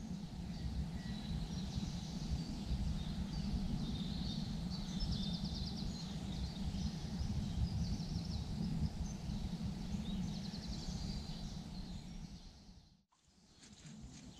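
Evening lakeside ambience: a steady low rumble with small birds calling faintly over it, including a few quick trills. It fades out about a second before the end.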